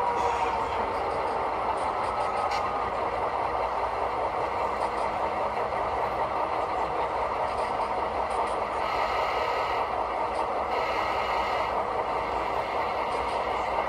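Model diesel locomotive sound running steadily as the BNSF train moves slowly. There is a falling tone at the very start.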